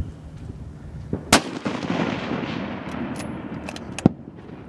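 A rifle shot fired from the prone position, a sharp crack about a second and a half in followed by a long echo rolling away across the range. A second sharp crack comes near the end.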